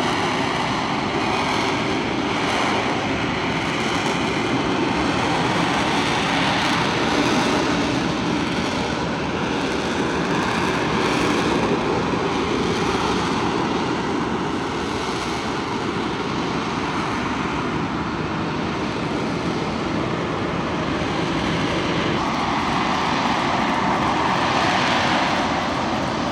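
Aircraft engine running loud and steady, with no clear rise or fall.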